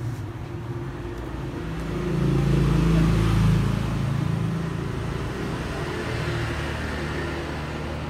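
Steady low engine hum of passing road traffic, swelling louder about two seconds in and easing off after about four seconds.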